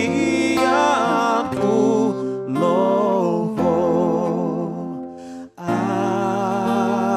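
A slow hymn sung by a voice with vibrato over acoustic guitar, with a brief break between phrases about five and a half seconds in.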